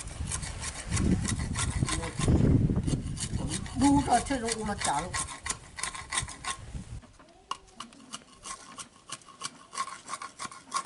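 A machete blade scraping and shaving a wooden board in quick, repeated strokes. A low rumble lies under the scraping for the first seven seconds or so, then the strokes are heard alone.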